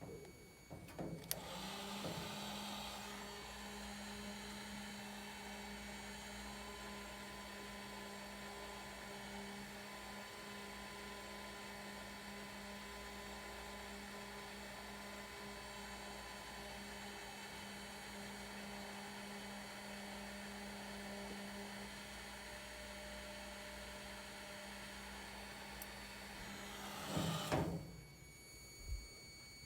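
An electric appliance motor running with a steady hum, switched on about a second in and cut off near the end. This is the run during which the faulty cycling thermostat under test fails to cycle.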